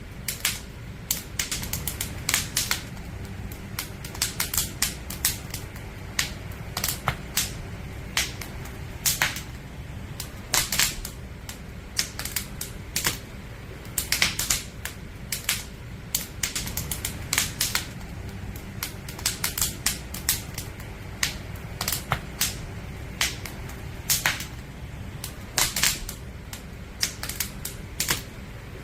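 Wood fire crackling: sharp, irregular pops and snaps, at times several in quick succession, over a low steady rumble of burning logs.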